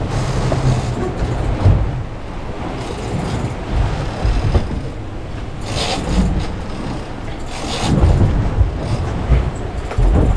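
Boat engine running under rushing wind and water noise, with louder rushes about six and eight seconds in.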